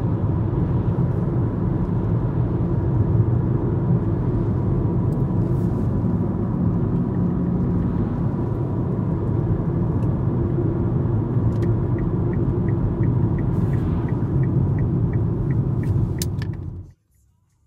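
Road and engine noise inside a moving car's cabin: a steady low rumble. For the last few seconds a turn-signal indicator ticks about three times a second, then all sound cuts off suddenly.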